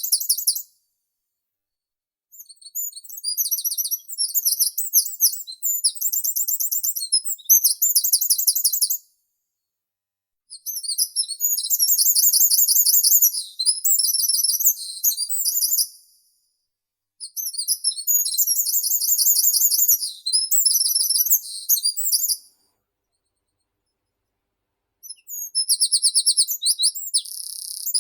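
A meadow songbird singing high-pitched songs of rapid repeated notes. It gives four songs of several seconds each, with short silent pauses between them.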